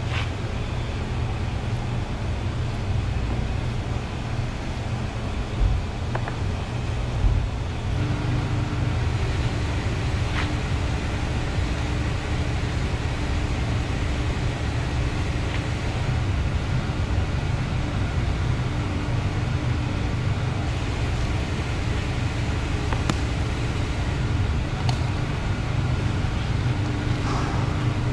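Steady low mechanical rumble, with a steady hum joining about eight seconds in and a few faint ticks scattered through.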